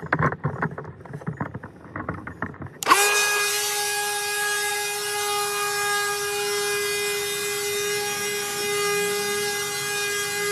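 Ryobi 18-volt cordless leaf blower starting suddenly about three seconds in and then running steadily: a rush of air with a constant whine from the motor and fan. Before it, a few seconds of irregular low knocks and rustles.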